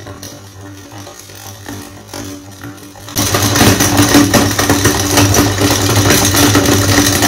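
Electric meat grinder motor running with a steady hum. About three seconds in it turns suddenly much louder, with dense crunching and rattling as marbles are ground through it.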